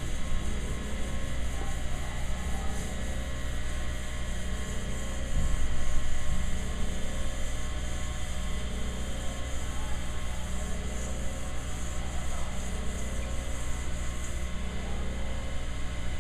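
Skate sharpening machine running with a steady hum, while a diamond-coated film honing pad is rubbed by hand along a steel skate runner in faint, repeated scraping strokes that stop near the end.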